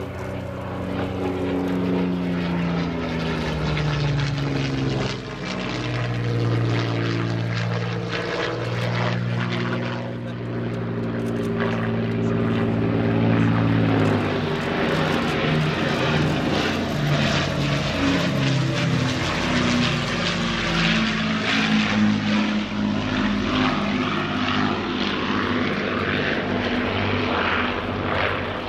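Avro Lancaster's four Rolls-Royce Merlin piston engines droning in a low flypast. The note grows louder as it approaches and drops in pitch as the bomber passes, about halfway through.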